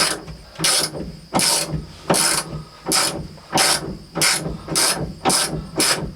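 Hand ratchet wrench worked back and forth on a bolt, a short burst of pawl clicks on each stroke, about ten strokes, coming a little faster toward the end.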